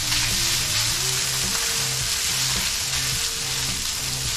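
Cold cooked rice frying in oil on a hot Blackstone flat-top griddle, a steady sizzle.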